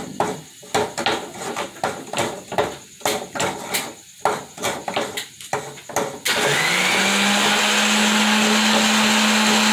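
Irregular knocks and scrapes of a coconut half worked against a plate. About six seconds in, an electric kitchen blender starts up and runs steadily, its motor hum rising briefly in pitch as it comes up to speed, then holding.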